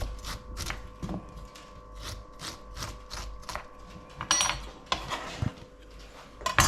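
A spoon scraping the seeds out of a halved cucumber in quick, even strokes, about three a second, stopping after about three and a half seconds; two louder scrapes follow, one about four seconds in and one at the end.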